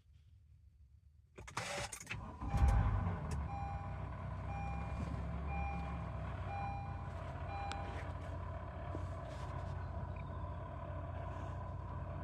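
2015 Honda CR-V's engine being started: a brief crank, a loud catch, then a steady idle. A short electronic chime beeps several times soon after it settles.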